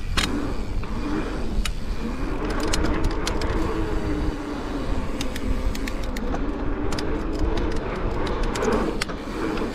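Mountain bike rolling around a dirt BMX track: wind rushing over the microphone, a tyre hum that rises and falls with speed, and scattered clicks and rattles from the bike.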